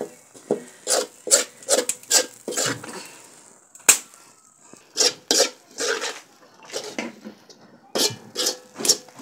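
Metal spoon scraping and stirring dry, crumbly roasted fermented-flour snack against the bottom of a metal wok, in quick irregular strokes about two a second.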